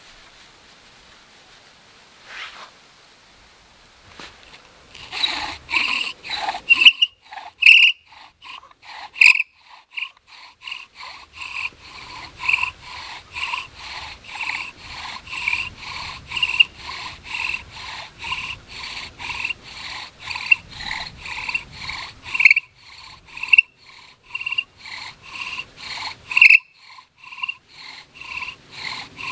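Bow drill working for a friction fire: the wooden spindle squeaks in the hearth board with each pull and push of the bow, at about two strokes a second. It starts about five seconds in, with a couple of brief pauses near the end.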